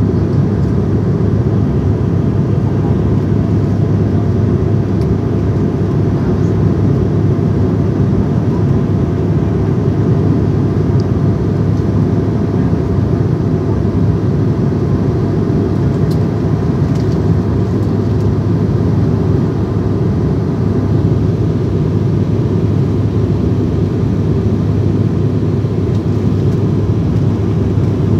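Airliner cabin noise: a steady low drone of engines and rushing air, with a few faint steady tones above it and no change in level.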